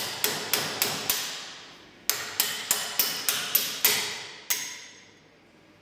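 Small hammer tapping a steel bolt into the stabiliser's mounting hole, driving the dowel pin out the other side: quick ringing metal-on-metal taps, about three a second, in two runs with a short pause between, then one last blow before the ringing dies away.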